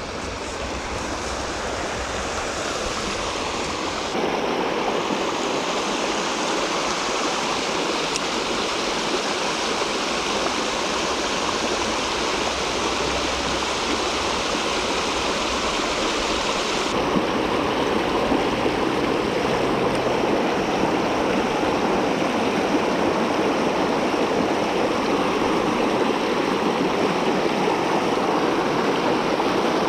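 River water rushing steadily, from a river running high after a week of rain storms. The sound changes abruptly twice, about four seconds in and again at about seventeen seconds.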